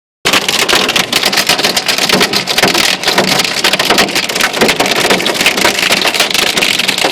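Hail pelting down: a dense, loud clatter of countless small impacts on a hard surface.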